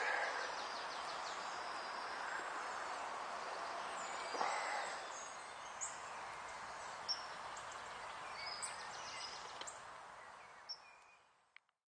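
Outdoor woodland ambience: a steady soft rush with a few short, high bird chirps scattered through it, fading out near the end.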